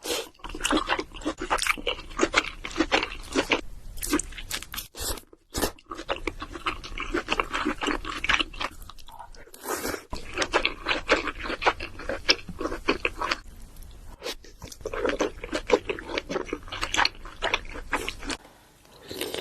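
Close-miked eating of king crab legs: dense, irregular crunching and cracking of shell, with chewing, broken by a few brief gaps.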